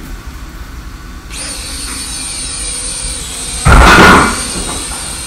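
Cheap quadcopter drone's motors and propellers spinning up about a second in to a steady high-pitched whine, with a loud, brief rushing burst near four seconds as it lifts off.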